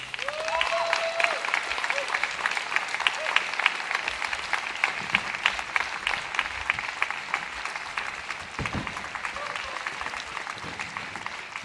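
Theatre audience applauding at the end of a song, steady clapping throughout, with a brief whoop from the crowd near the start.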